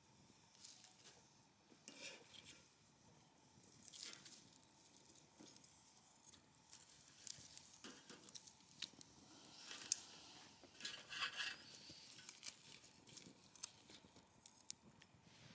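Wood campfire crackling: faint, scattered pops and snaps of burning firewood, with a denser run of louder crackles about ten to eleven seconds in.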